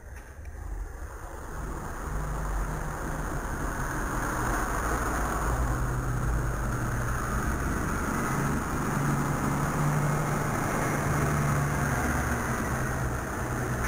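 Large farm tractor's diesel engine running close by on the road, growing louder over the first two seconds, then a steady loud low drone whose pitch shifts a little as it moves.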